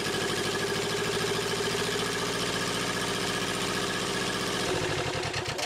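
Yanmar 2GM two-cylinder marine diesel engine running steadily on a test stand, with a rapid, even pulsing from its firing strokes.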